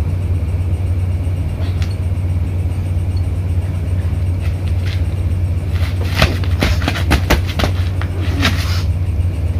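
A steady low hum throughout, with a burst of rustling and crackling from about six to nine seconds in as dry banana leaves and stalks are brushed and grabbed.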